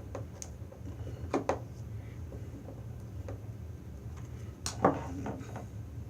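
A few sharp clicks and taps from a small screwdriver tightening the terminal screws on a screw-terminal security-camera connector, the loudest about five seconds in, over a steady low hum.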